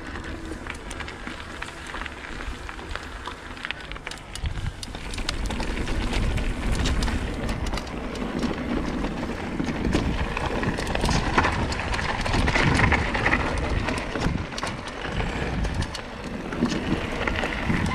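Mountain bike riding fast down a rough trail: tyres rolling over gravel and rock with many small rattles and knocks from the bike, over a low rumble. It gets louder about five seconds in.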